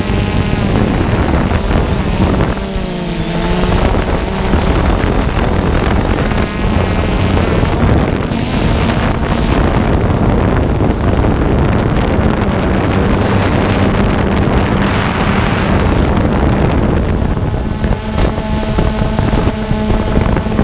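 DJI Phantom 2 quadcopter's motors and propellers buzzing, heard from the camera riding on the drone, with wind rushing over the microphone. The motor pitch shifts up and down a few seconds in as the drone manoeuvres, then holds steadier.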